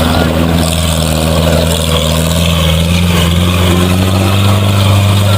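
Engine of a 4x4 off-road vehicle running steadily at a constant low speed, with a deep, even hum.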